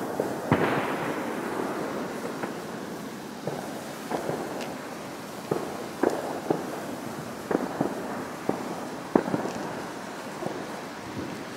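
Two handheld shooting-star sparklers burning with a steady hiss, broken by irregular sharp crackling pops every half second or so.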